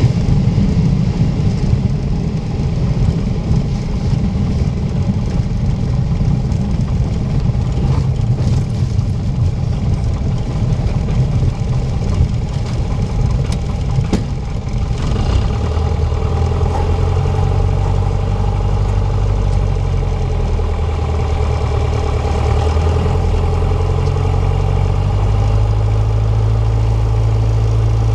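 An uneven low rumble, then about halfway in a steady low engine drone sets in and runs on without changing pitch.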